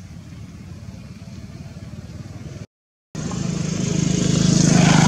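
A steady low engine hum, cut by a brief dropout, then a motor vehicle engine drawing near and passing, growing louder to a peak near the end.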